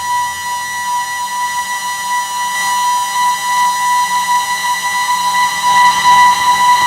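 Homemade square-wave drone synth holding one steady, high, whistle-like tone with a buzzy stack of overtones, getting a little louder in the second half.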